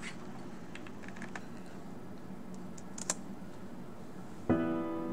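A few scattered clicks and taps on a computer keyboard, the sharpest about three seconds in, over a faint steady hum. Near the end, music starts suddenly with a struck, held chord.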